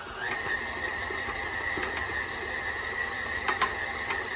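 KitchenAid stand mixer running with a steady motor whine, its dough hook kneading a wet, high-hydration sourdough dough that smacks against the bowl. The smacking is the sign of the moisture in the dough, just the wetness wanted.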